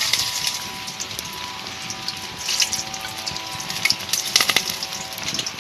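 Whole spices tipped into hot oil in a steel bowl over a wood fire, sizzling and crackling in short bursts, the loudest near the end.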